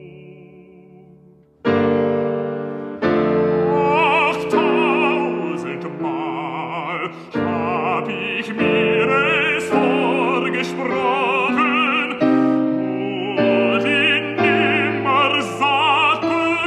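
German art song: a baritone sings with wide vibrato over sustained piano chords. A single piano tone fades at first, then piano and voice enter strongly about a second and a half in.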